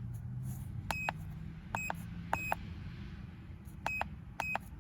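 Handheld OBD-II scan tool beeping: five short electronic beeps as its buttons are pressed to read the trouble codes, over a steady low hum.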